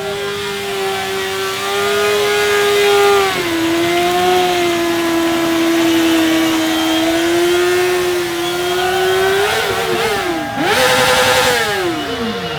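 Motorcycle engine held at high revs with a steady pitch for about ten seconds, dipping slightly once, then revved rapidly up and down near the end with a burst of hiss.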